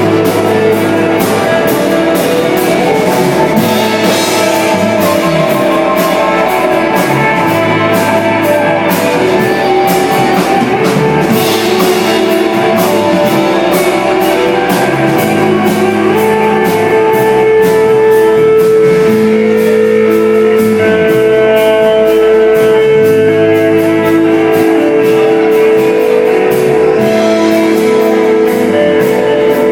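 Desert rock band playing live: electric guitar over two bass guitars and a drum kit, with a steady beat of cymbal hits. About halfway through, a long sustained note comes in and rings on.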